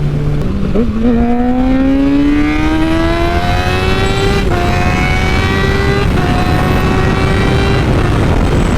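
Kawasaki 636 sport bike's inline-four engine pulling hard under acceleration: the revs climb steadily, drop on an upshift about four and a half seconds in and again at about six seconds, and the throttle closes near the end. Heavy wind rushes over the microphone throughout.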